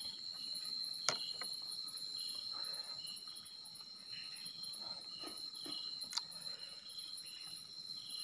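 Night insect chorus: a steady high trill with crickets chirping in a repeating pulse over it. Two short sharp clicks stand out, about a second in and about six seconds in.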